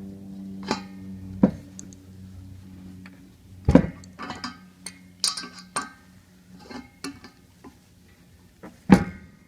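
Irregular metal clicks and knocks of a pressure switch being worked tight into a train-horn air tank's threaded port, the loudest about four seconds in and again near the end. A low steady hum underneath fades out about halfway through.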